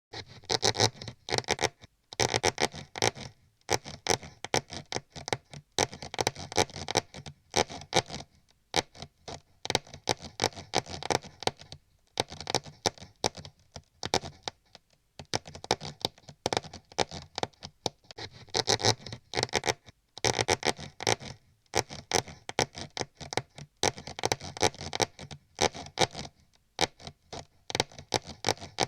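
Mouse scratching and scurrying sound effect: rapid dry clicks and scrapes coming in bursts of a second or two, with brief pauses between them.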